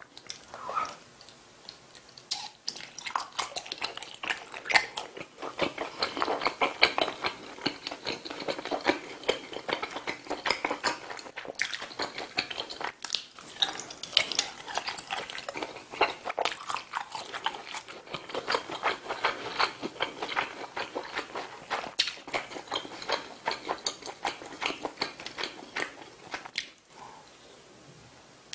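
Close-miked wet chewing and biting of sausage skewers coated in spicy tteokbokki sauce: a steady run of mouth clicks and smacks.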